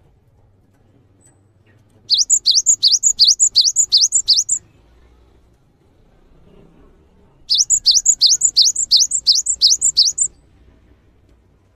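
Cinereous tit (gelatik batu) singing: two bursts of rapid, high, upward-sweeping notes, about five a second, each burst lasting over two seconds, with a pause of about three seconds between them.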